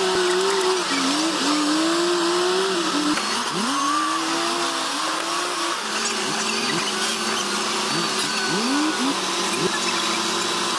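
Diesel engines of bulldozers working under load, their pitch repeatedly rising and falling as they rev, with quick upward revs in the second half.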